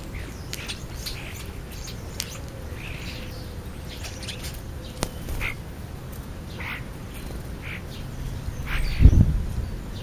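Scattered short chirps and calls from house sparrows and European starlings, with a few faint clicks among them. About nine seconds in comes a brief low buffeting thump, the loudest sound.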